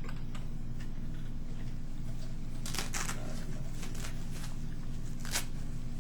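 Steady low hum with a few scattered clicks and rustles, the clearest about halfway through and again near the end.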